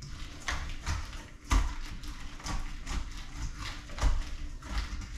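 Plastic zip-top bag of brine and bluefish pieces being squeezed and shifted in a bowl: liquid sloshing and plastic crinkling, with irregular soft knocks, the heaviest about a second and a half in and again about four seconds in.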